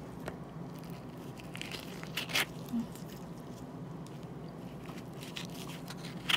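A few short, soft clicks and scrapes of a metal spoon scooping ripe avocado flesh out of its skin, over a faint steady low hum.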